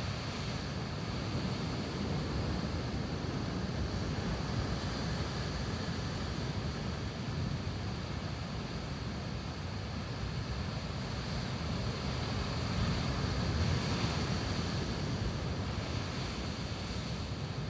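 Rough sea surf breaking and surging against rocky sea cliffs, a steady rushing noise, with wind rumbling on the microphone. It swells a little about three-quarters of the way through.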